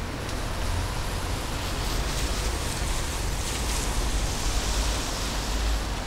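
Steady outdoor noise off a wet street: a low, unsteady rumble of wind on the microphone under a hiss that swells through the middle and fades again near the end.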